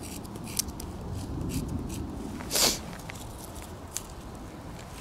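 Knife blade scraping dry birch bark in short rasping strokes, shaving off fine scrapings as tinder, with one louder rasp of the bark about halfway through and a few faint ticks after it.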